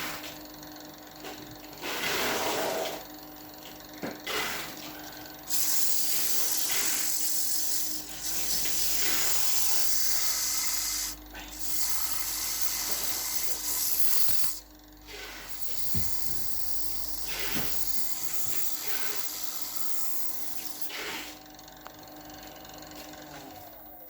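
Abrasive sheet pressed against a wooden plate spinning on a Powermatic PM2014 wood lathe: a steady sanding hiss in long passes, the longest and loudest through the middle, over the lathe's even motor hum.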